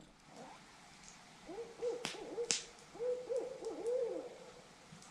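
An owl hooting in two rapid runs of short, rising-and-falling hoots, the second run starting about three seconds in. Two sharp clicks come in the middle of the first run.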